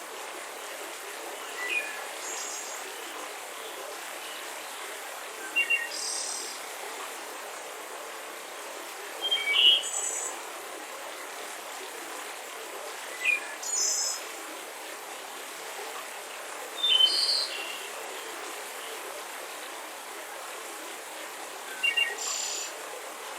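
Mountain river rushing steadily, with short high bird chirps breaking in every few seconds, some in quick pairs.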